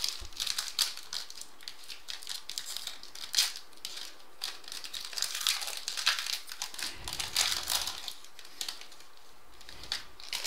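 Trading card pack wrapper being torn open and crinkled by hand, a run of irregular crackles and rustles.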